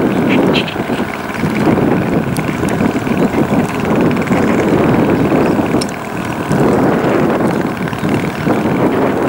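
Wind blowing on the microphone: a loud rushing noise that rises and falls in gusts.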